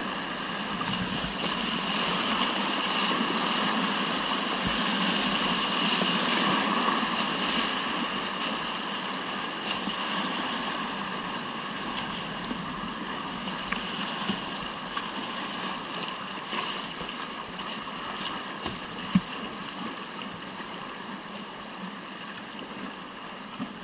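Rushing whitewater of a mountain river rapid, a steady wash of water noise that is loudest about six seconds in and then slowly fades, with a few short knocks.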